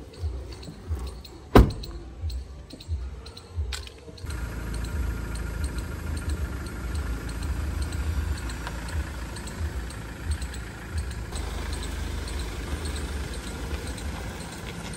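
A car door slams shut about a second and a half in. A few seconds later the black SUV's engine starts and runs steadily.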